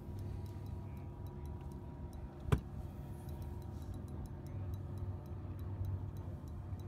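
Spinning reel ticking quickly and evenly while a hooked walleye is played on a hard-bent rod. There is one sharp knock about two and a half seconds in, over a low steady hum.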